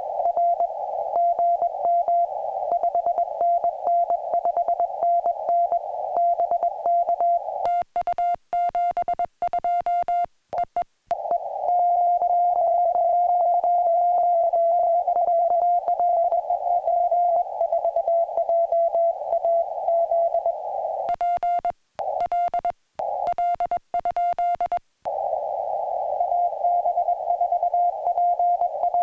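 Morse code on a portable ham radio: a single mid-pitched tone keyed on and off in quick dots and dashes over the hiss of a narrow CW filter. Twice, for a few seconds, the hiss drops out and the keyed tone turns sharper and buzzier, with short silences between characters.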